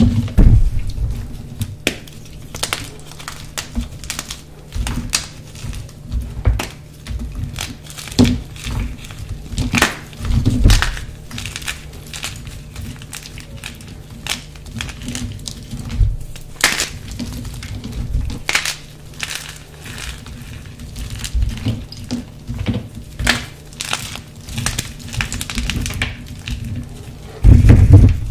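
Hands crushing and squeezing dyed gym chalk: chalk powder and crumbly chunks crunch, crackle and break apart in irregular handfuls. A heavier crunch comes near the end.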